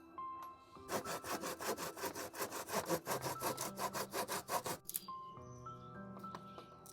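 Hand saw cutting through a wooden board in a quick, even run of strokes lasting about four seconds, then stopping.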